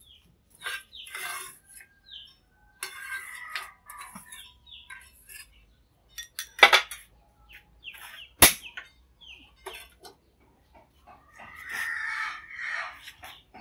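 Chickens clucking intermittently, with two sharp clinks of a metal ladle on the pan or bowl near the middle.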